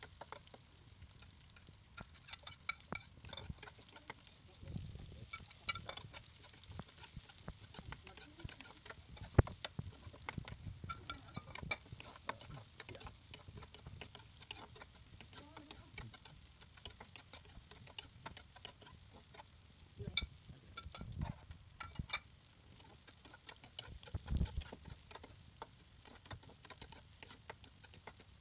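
Metal spatula clinking and scraping against a wok while stir-frying onions and sliced vegetables in oil, in irregular quick strokes, with one sharper knock about nine seconds in.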